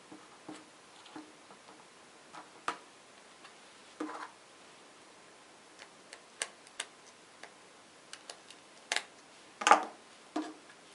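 Scattered clicks and light knocks of plastic parts being handled: a small robot car chassis kit with yellow gear motors and plastic wheels turned over in the hands. The loudest knock comes near the end.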